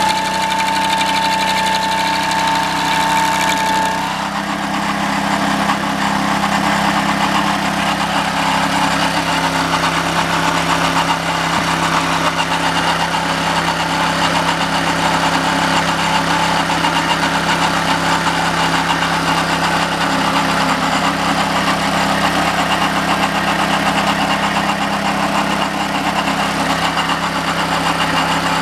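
The 6.5 hp Honda single-cylinder engine of a homemade stump grinder running steadily. About four seconds in, a high steady whine stops and the running turns rougher and noisier.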